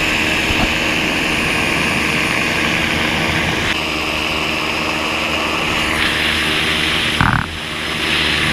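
Motorglider's Kawasaki 440A two-stroke engine running steadily at climb power, driving a mast-mounted propeller, with steady rushing airflow noise. The sound changes abruptly a few times and breaks briefly about seven seconds in.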